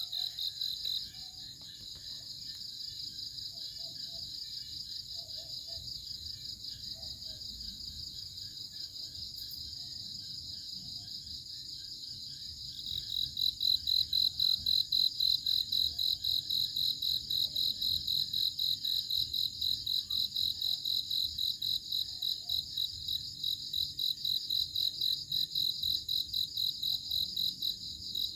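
Crickets chirping in a continuous, rapidly pulsing high-pitched trill, growing clearly louder about halfway through.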